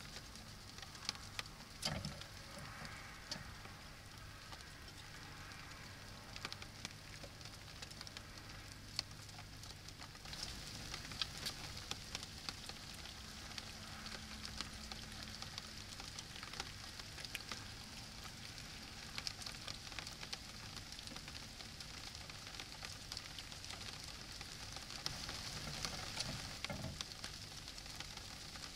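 Faint steady hiss from a trail camera's microphone, dotted with many small irregular clicks and ticks.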